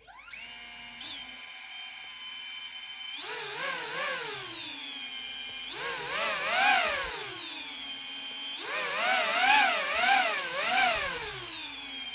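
DJI Neo mini drone's propellers spinning up into a steady high-pitched whine. Three times the pitch rises sharply and wavers as the motors throttle up, then falls back to the hover tone.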